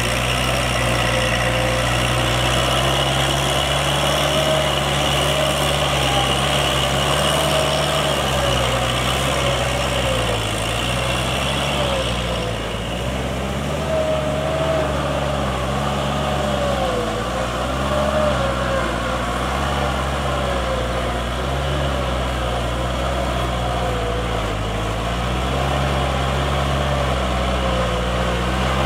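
Kubota L5018 SP tractor's diesel engine running under load as it pulls a rotary tiller through wet paddy mud, its pitch rising and falling as the load changes.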